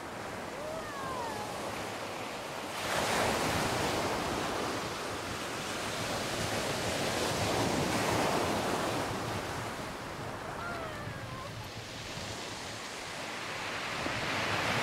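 Sea waves breaking and washing up a sand-and-shingle beach in rolling surges. The surf swells suddenly about three seconds in, and again around eight and fourteen seconds.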